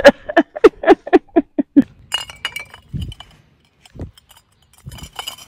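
Glass bottles clinking: a quick run of about ten sharp clinks in the first two seconds, then a few scattered clinks and dull knocks.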